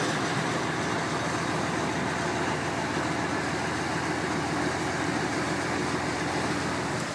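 Boat engine running steadily, heard from on board while the boat moves through calm harbour water.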